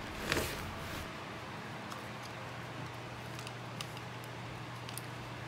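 A few faint, short clicks of small hard parts being handled over a steady low hum.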